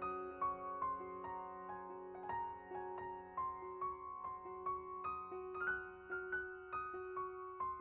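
Background music: a soft piano melody of single notes struck one after another over held lower notes.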